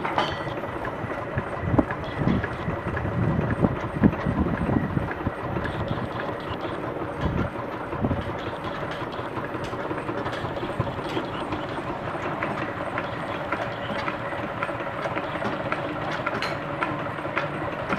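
Antique New Huber traction engine running steadily, turning a sawmill through a long flat drive belt, with a clatter of rapid clicks from the belt and mill machinery. A few heavier low rumbles come in between about two and eight seconds in.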